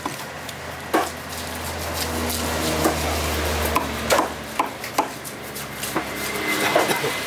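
A heavy curved fish knife chopping through a snapper onto a thick chopping block: sharp knocks at an irregular pace, about six in all. A low hum sounds for a few seconds in the middle.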